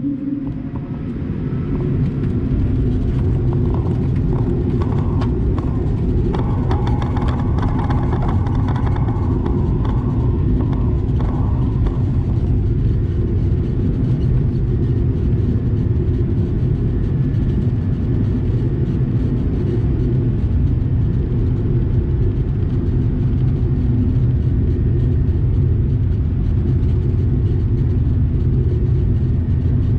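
Cabin noise of an Airbus A220-300 jet, its Pratt & Whitney PW1500G engines and airflow making a loud, steady low rumble. For roughly the first dozen seconds a lighter rattle and whine ride on top, then the rumble goes on evenly.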